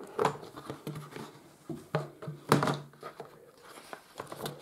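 Cardboard board-game box being opened by hand and its rule book lifted out: a handful of sharp taps and knocks of cardboard, with paper rustling.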